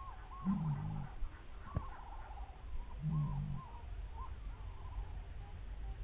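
Bird calls played slowed down into deep, drawn-out sounds: a low call comes twice, with a run of higher arched notes from other birds behind it.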